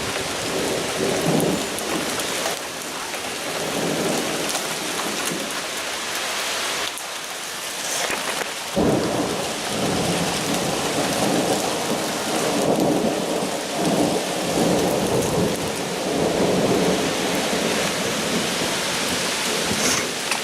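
Heavy rain pouring down in a thunderstorm, with rumbles of thunder swelling and fading under the steady hiss of the rain.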